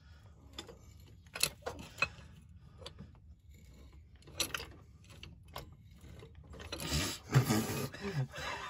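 Hydraulic floor jack being pumped by hand, pressing up under a truck's steering idler arm to pop it loose: scattered clicks and knocks of the jack's handle and pump about once a second, then a louder stretch of mechanical noise near the end as it takes up the weight.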